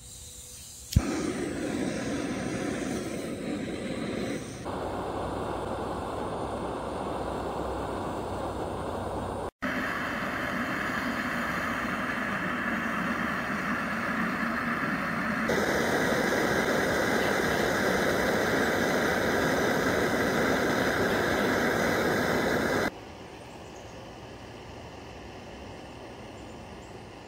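BRS-3000T gas canister stove lighting with a sharp pop about a second in, then burning with a steady hiss as it heats a titanium pot of water. The hiss grows louder and brighter past the middle, then drops abruptly to a much lower hiss several seconds before the end.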